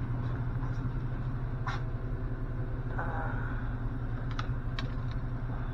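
Car engine idling with a steady low hum, with a few sharp clicks and knocks on top.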